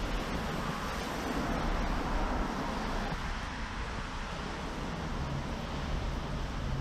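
Steady outdoor background noise: a low rumble of distant traffic with wind on the microphone.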